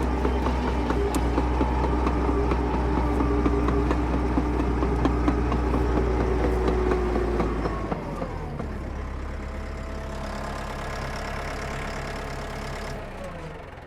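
Motorised LEGO Technic Cat D11 bulldozer running, a steady mechanical drone with a low hum. It drops in level about eight seconds in and dies away near the end.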